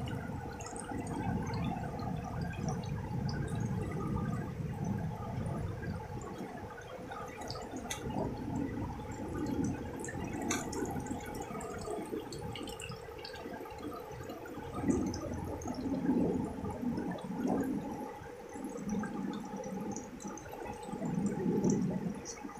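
Water trickling and splashing down mossy rocks in a small natural stream waterfall, running steadily.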